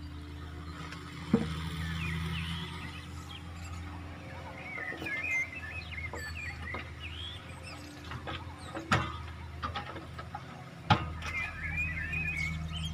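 Heavy-equipment diesel engine running steadily at low revs, with birds chirping over it and three sharp knocks: one about a second in and two near the end.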